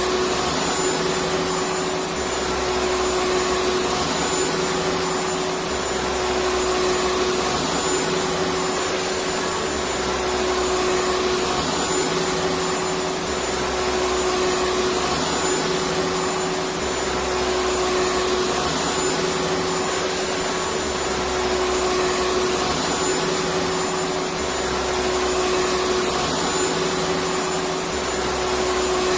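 Vacuum cleaner running steadily: a continuous noise with a steady hum and a faint high whine, gently swelling and easing every few seconds.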